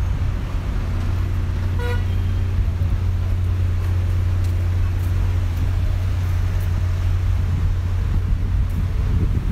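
City street traffic: a steady low rumble of car engines, with one short car-horn toot about two seconds in.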